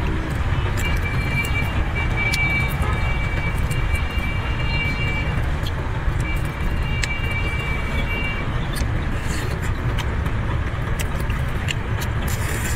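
Shell of a cooked shrimp crackling and snapping in small sharp clicks as it is peeled by hand, over a steady low rumble. A thin high steady tone sounds twice, a few seconds each time.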